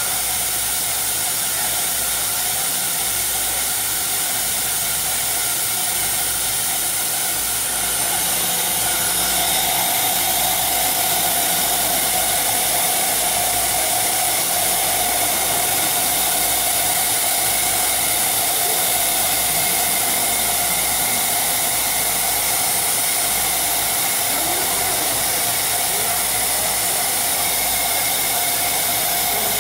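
CNC router running, a steady hissing whir of its spindle and drives with a few steady tones in it, growing a little louder about eight seconds in.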